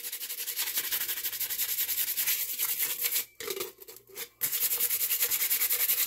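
180-grit sandpaper held by hand, rubbed in rapid back-and-forth strokes over the cured epoxy coat of a glitter tumbler to knock down sharp glitter pieces sticking up. The rasping breaks off twice for a moment a little past halfway, then carries on.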